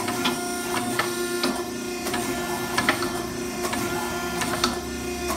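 Electric hydraulic power pack of a 16-ton forging press running with a steady whine, while irregular sharp cracks, about two a second, come from the hot steel bar as the dies squeeze it. A low hum joins in about four seconds in.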